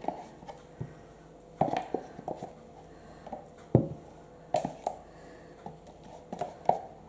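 A spatula scraping and knocking against a yogurt container as the last of the yogurt is scraped out: irregular short knocks and scrapes, the loudest a little under four seconds in.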